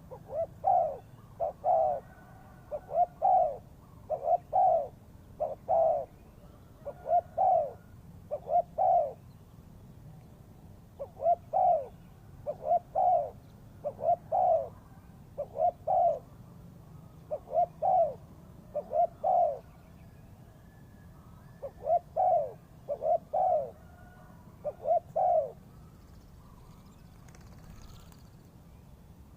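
Spotted dove cooing: short, low coo notes in a steady series of phrases, with two brief pauses along the way, falling silent a few seconds before the end.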